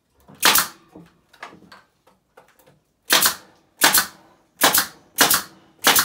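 Pneumatic nail gun firing nails into a wooden rim strip, six sharp shots, each with a short hiss of air: one shot about half a second in, then five in quick succession from about three seconds on, with small clicks of handling between.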